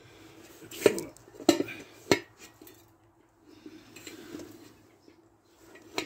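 Three sharp clanks of the wheelbarrow wheel being handled and knocked on the workbench, about a second in and then roughly half a second apart, followed by quieter scraping and handling.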